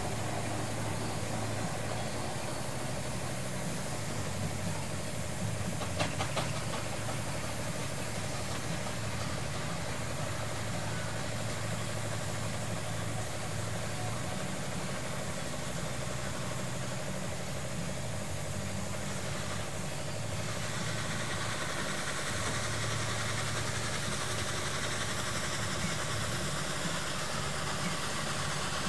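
An engine idling steadily with a low, even rumble. A brief rattle of clicks comes about six seconds in, and a hiss rises over the running engine about two-thirds of the way through.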